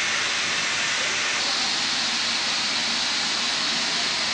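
Natural gas escaping under pressure from a ruptured underground gas pipe, a loud steady hiss. About a second and a half in, the hiss turns higher.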